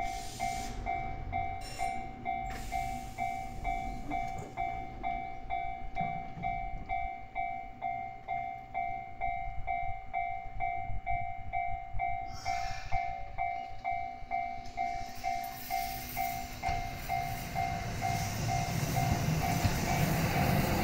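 Fukui Railway Mo880 tram departing, its running noise building over the last few seconds as it pulls away. Throughout, a level crossing alarm rings steadily about twice a second.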